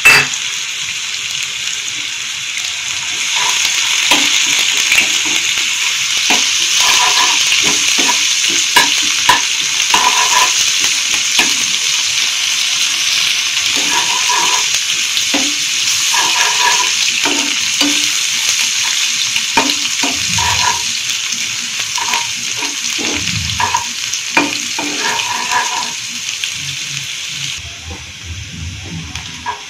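Sliced onions sizzling in hot oil in a nonstick pan, with a spatula scraping and tapping against the pan as they are stirred. The sizzle grows louder a few seconds in and eases off near the end.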